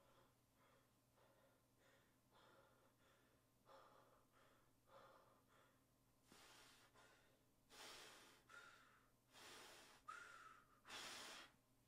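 Faint breathing close to the microphone: soft short breaths at first, then from about six seconds in four louder, heavier breaths, two of them with a slight whistle.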